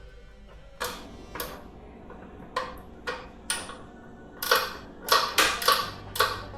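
Flex-head ratchet wrench clicking as it runs down the horn's mounting nut: a few spaced clicks at first, then a quicker, louder run of clicks from about two-thirds in.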